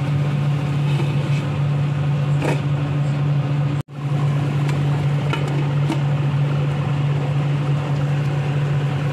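Steady low hum of a kitchen fan, with a few light clinks of a glass pot lid and spatula on the pan; the hum breaks off for an instant a little under four seconds in.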